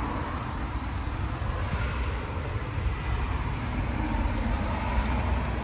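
Steady outdoor street noise: traffic rumble with a heavy low end and no distinct events.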